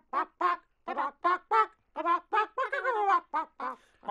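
Chicken clucking and squawking in a quick run of short calls, about three or four a second, with a brief pause near the end.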